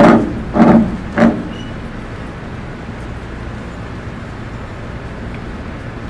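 A man's voice calls out three short, loud syllables in the first second and a half, then a steady low hum of room noise.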